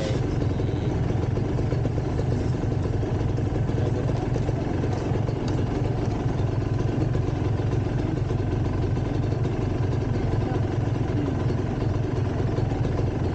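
Kawasaki motorcycle engine idling steadily, a constant low hum.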